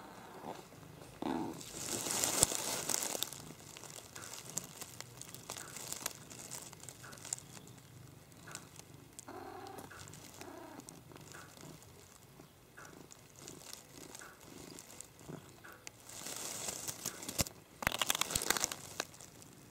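A cat purring steadily, with dry hay crackling and rustling loudly about two seconds in and twice more near the end.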